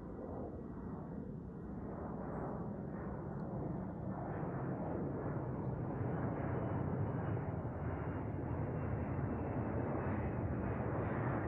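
Jet airliner engines passing overhead: a broad, steady rumble, strongest in the low range, that grows louder as the plane approaches.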